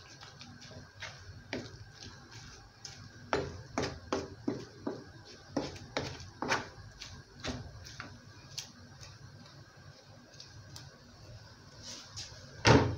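Wooden spatula stirring a pot of leafy vegetable soup, tapping and knocking against the metal pot in irregular clicks, with a louder knock near the end.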